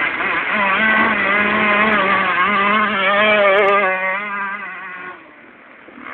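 125 cc two-stroke motocross bike's engine revving as it rides past, the pitch wavering up and down with the throttle. It is loudest as the bike passes, then falls away and fades out a little after five seconds in.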